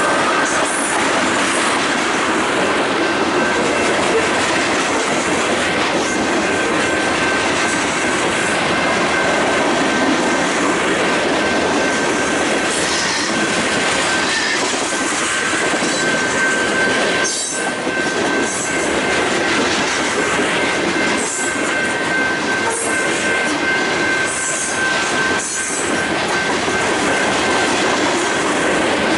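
BNSF freight train cars rolling past on the rails with a steady high-pitched wheel squeal. Now and then a sharp clack sounds as wheels cross rail joints.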